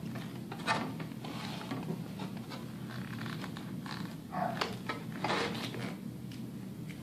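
Aviation snips trimming the edge of a vacuum-formed plastic stormtrooper shin piece: a series of irregular crunching cuts, the loudest a few about halfway through and just after.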